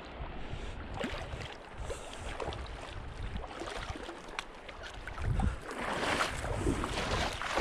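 A hooked cutthroat trout splashing in shallow river water as it is brought in and reached for by hand, the splashing louder in the second half.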